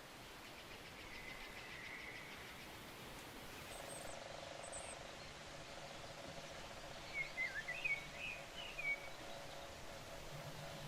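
Outdoor ambience with a songbird singing a short warbling phrase about two-thirds of the way in, preceded by a few faint high chirps. A steady faint hum sets in about a third of the way in.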